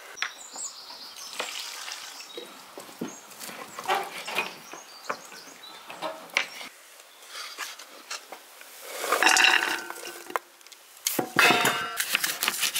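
Dishes and cutlery clinking and knocking as onions are handled and cut with a knife over an enamel bowl, with two louder ringing clatters of dishes about nine and eleven seconds in.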